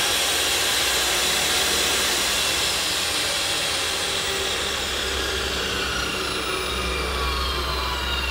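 Abrasive cut-off saw (chop saw) motor running free without cutting, a loud steady whir. About three seconds in, its pitch begins to fall slowly.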